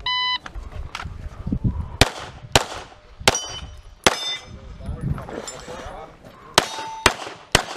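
An electronic shot timer beeps once for about half a second, then a semi-automatic pistol fires seven shots: four spaced a little under a second apart, a pause of about two and a half seconds, then three quicker shots.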